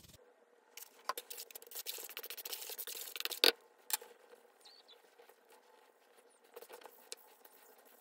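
Gloved hands mixing and kneading bicarbonate of soda in a plastic bowl: a dense crackling and rustling of powder and disposable gloves, with one sharp knock about three and a half seconds in, then quieter crackles.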